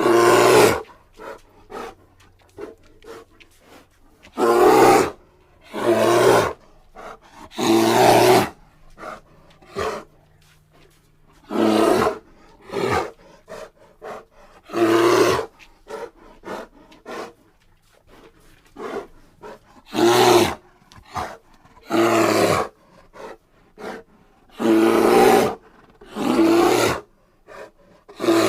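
Bear roaring again and again: about a dozen short, loud roars, each under a second, irregularly spaced one to several seconds apart, with faint short sounds between them.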